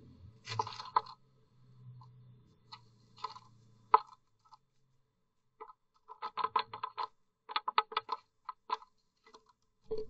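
Blue tit pecking and scratching at the wooden floor of a nest box: a brief scrabble of its feet early on, scattered taps, then a quick, irregular run of sharp beak taps on the wood in the second half.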